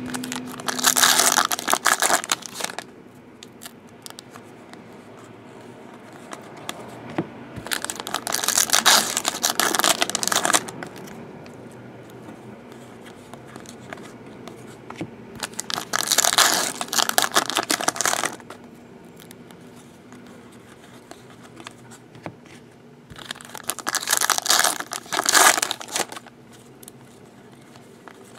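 Foil trading-card pack wrappers crinkling and tearing in four bursts of two to three seconds each, spaced several seconds apart, as packs are opened.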